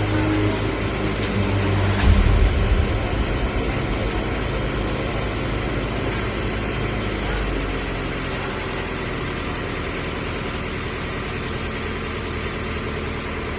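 Street-light maintenance truck's engine idling steadily; its low rumble grows louder about two seconds in, then eases back to a lower, even idle.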